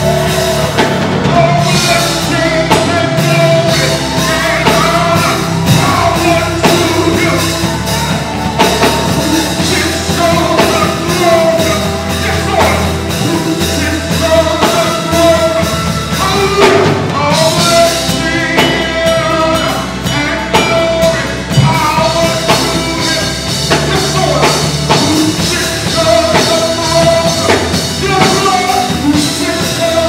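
Live gospel band playing loud and steady with drums, a lead vocalist singing into a handheld microphone over it.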